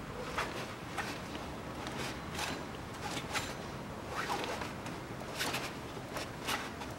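Ratchet wrench clicking in short rasping runs, about one a second, as a pulley's bolts are undone on the engine.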